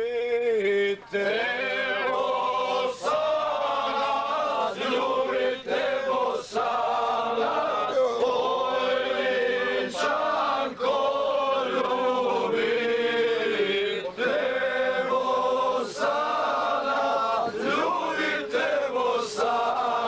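A group of men singing together, with long drawn-out held notes that bend in pitch.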